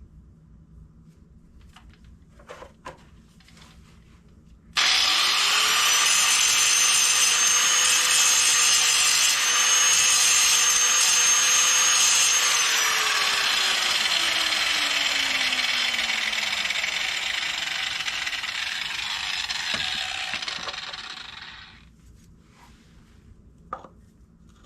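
Electric grinder starting suddenly and grinding metal for several seconds, its motor whine steady, then switched off and winding down with a falling whine as the grinding noise fades out. A few small knocks come before and after.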